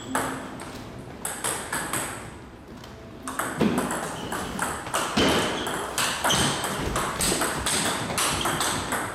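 Table tennis rally: the celluloid/plastic ball clicking off rackets and the table in quick succession. A few scattered strikes in the first three seconds, then a dense run of clicks from about three seconds in.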